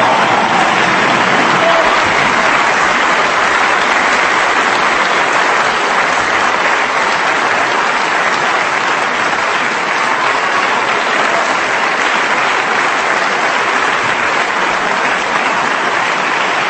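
Audience applauding steadily throughout a live circus trapeze performance.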